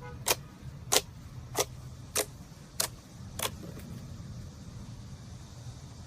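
Slime being worked by hand, giving six sharp clicking pops about 0.6 s apart that grow softer and stop about three and a half seconds in, over a steady low hum.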